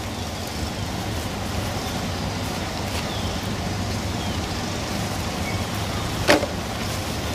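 Steady low background rumble, with one sharp knock about six seconds in.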